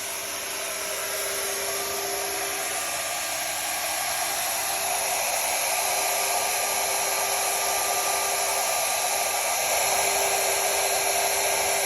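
Shaper Origin handheld CNC router running, its spindle cutting a tenon in wood as it is guided along the line. A steady whine of one pitch sits over a wide rush of noise and grows slowly louder.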